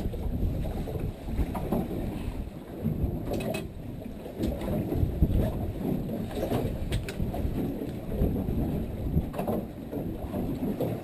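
Wind buffeting the microphone aboard a small boat at sea, an uneven rumble that rises and falls, with a few sharp clicks.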